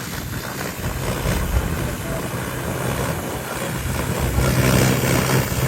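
New Holland tractor's diesel engine running as the tractor is driven, a steady hum that grows louder about four seconds in.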